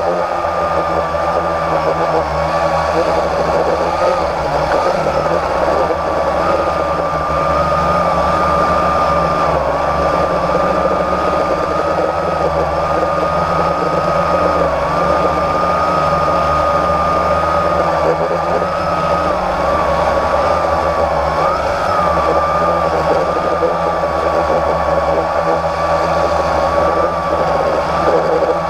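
Blade 350 QX quadcopter's electric motors and propellers buzzing steadily, heard close up from its own onboard camera, with a high whine that wavers slightly in pitch as the throttle changes.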